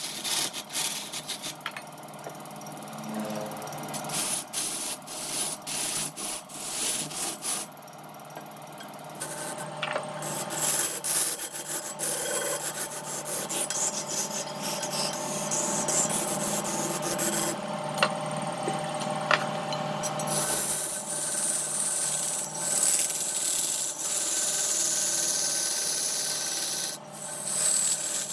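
Wood being worked on a turning lathe: continuous rubbing and scraping against the spinning wood, with small ticks, easing off briefly a few times.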